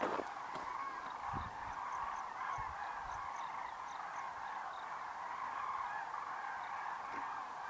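A huge flock of common cranes calling in flight: a dense, unbroken chorus of many overlapping trumpeting calls.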